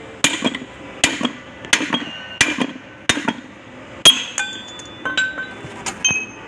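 Hammer blows on a steel drift driving a ball bearing out of a Kubota Bultra B16 front axle bevel gear: about nine sharp metal-on-metal strikes, roughly one every 0.7 s, the loudest about four seconds in, with ringing metal after the later blows as the bearing comes free.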